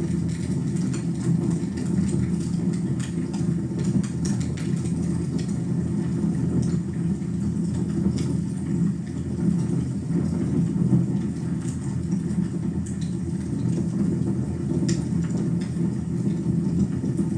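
Wood fire burning in a fireplace: a steady low roar of the flames with scattered sharp crackles and pops of the burning wood.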